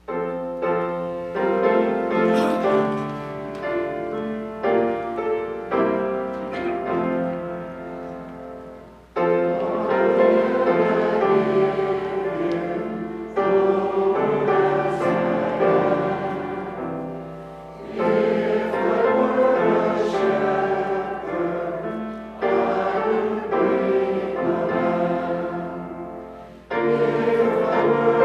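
Church congregation singing a hymn together with piano accompaniment. The singing comes in phrases about four to five seconds long, with short breaths between them.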